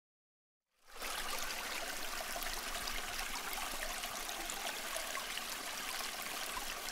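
Shallow stream water rushing and trickling close by, a steady even wash, stirred up by someone wading through it. It cuts in suddenly about a second in.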